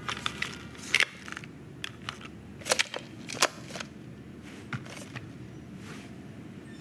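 Animated-film Foley: a scattered series of sharp clicks and light taps, loudest about a second in and again around three seconds in, over a steady low background hum.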